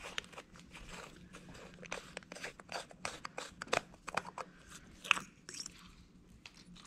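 Small metal clicks and scrapes as the screw-on top cap of a Keihin carburetor is turned off by hand and the throttle slide with its needle is drawn out. There is a sharper click about five seconds in.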